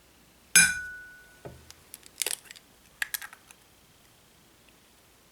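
A sharp clink of kitchenware being struck, ringing for about a second, followed by a few light clicks and taps of things being handled.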